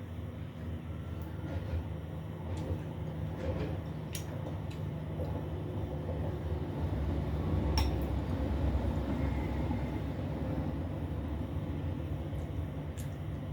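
A few sharp clinks of tableware during a meal, the loudest about four and eight seconds in, over a steady low background rumble.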